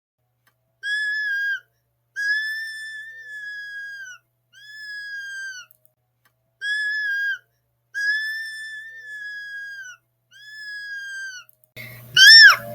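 A high, pure whistle-like tone sounds in six held notes at nearly one pitch, in two matching sets of three (short, long, medium), each note bending slightly down at its end. Near the end a louder tone starts, wavering up and down in pitch.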